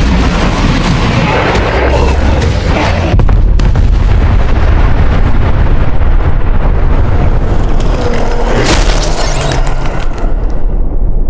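Loud, continuous deep booming rumble with heavy bass, from a sound-effect track. Two sharp cracks sound about three seconds in.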